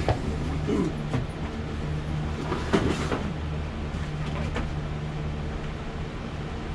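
Steady low machine hum, with a few knocks and rustles of packaging being handled about three seconds in.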